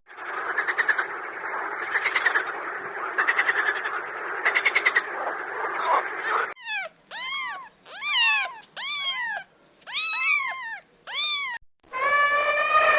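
A frog chorus with repeated fast pulsed trills for about six seconds. It cuts to a different animal giving about seven short arched calls, each rising and falling in pitch. About twelve seconds in, a long, steady call begins.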